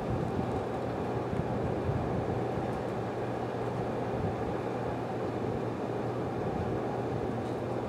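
Whitfield Advantage/Profile 30 pellet stove running: its blowers force air through the burning pellets and out of the heat-exchange tubes, giving a steady whooshing hum with a constant low tone.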